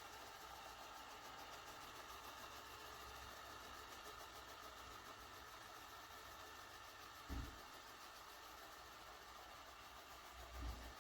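Lefant M210 Pro robot vacuum running with a faint steady motor hum, with two short dull thumps, one about seven seconds in and one near the end.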